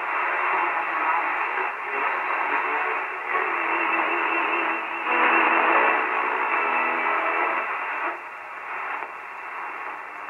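Stern & Stern Conserton V33 four-tube single-circuit radio playing through its lid loudspeaker while the tuning knob is turned: noisy, narrow-band AM reception with a few steady tones, its loudness and tone shifting every second or two.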